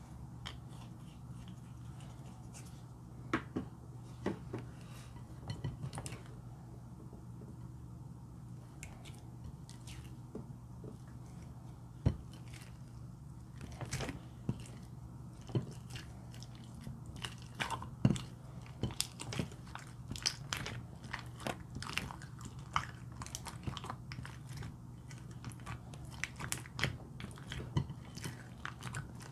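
Slime being squeezed, folded and stretched by hand: wet, sticky clicks and pops, scattered at first and coming thick and fast in the second half. A steady low hum runs underneath.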